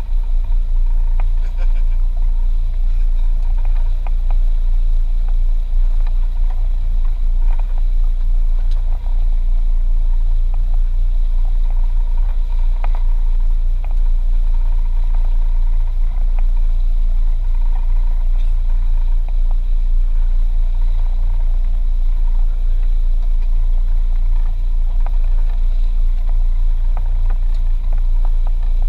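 Boat engine running steadily with a low rumble while the boat moves slowly.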